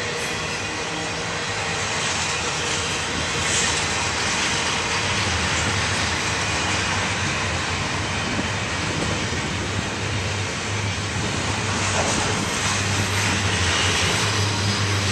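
Double-stack intermodal freight train passing at speed: a steady rush and rumble of container well cars rolling on the rails, with a low hum that grows stronger about a third of the way in.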